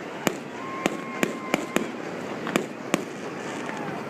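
Fireworks going off: about seven sharp bangs at uneven intervals, with a held whistle-like tone for about a second near the start.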